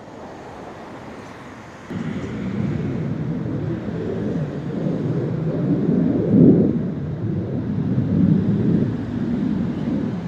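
A low rumbling roar from the sky, like a jet or rocket, coming on suddenly about two seconds in and swelling and easing for the rest, loudest around two-thirds of the way through. The person filming takes it for strange-sounding thunder.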